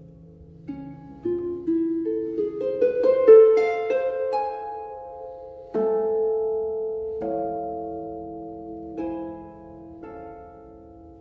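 Background music of plucked strings: a few single notes, a quick rising run of notes about two to four seconds in, then slower ringing chords every second or two that fade toward the end.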